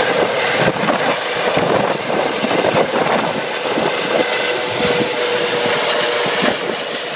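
Eurocopter EC135 rescue helicopter climbing away after takeoff: the rapid beat of the main rotor blades over a steady turbine whine, loud, easing off a little near the end.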